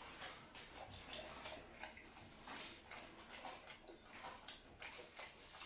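A man chewing meat off a skewer: a run of faint, irregular wet mouth clicks and smacks.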